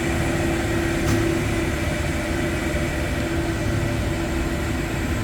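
LeBlond HD 3220 heavy-duty engine lathe running under power: a steady motor and gear hum with a held tone, and a single click about a second in.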